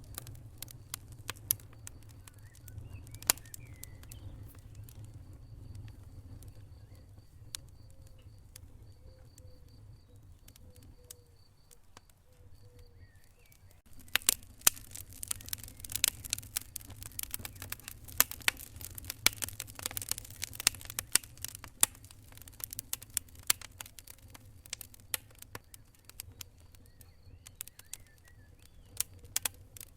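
Wood fire crackling in a fireplace: irregular sharp pops and snaps over a low steady rumble of the flames, the pops growing denser and louder about halfway through. A faint high, rapidly pulsing chirp runs through the first half.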